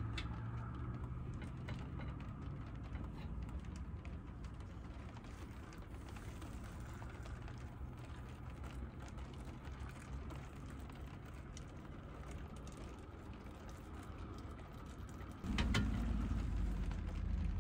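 Hot water poured from a small pot into a pour-over coffee cone on a mug, with light clinks and knocks of cookware over a low steady hum. The sound steps up suddenly about three-quarters of the way through.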